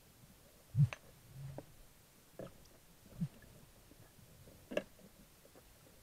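A handful of dull knocks and sharp clicks heard underwater: handling noise of a speargun and the camera mounted on it. The loudest is a dull thump about a second in.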